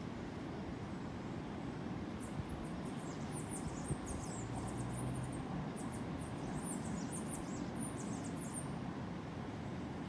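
Tropical coastal jungle ambience: a steady low rush, with a run of rapid, very high-pitched chirps from about two seconds in until near the end.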